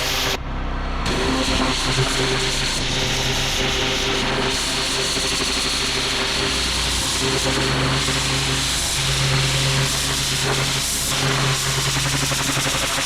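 Pressure washer running steadily, its engine humming under the hiss of the water spray on a hard surface.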